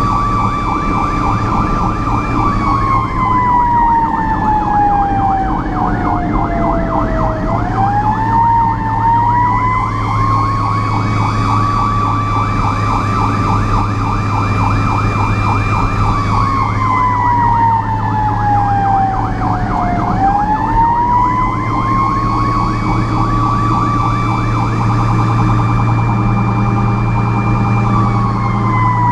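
Fire truck sirens on an emergency response: a wail that rises, holds and then slowly falls, in long cycles about twelve seconds apart, with a rapid pulsing siren tone over it. A steady low engine drone runs underneath.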